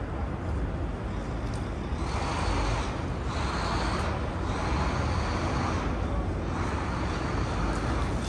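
Street traffic: a steady low rumble of engines, with passing vehicles' hiss swelling and fading several times.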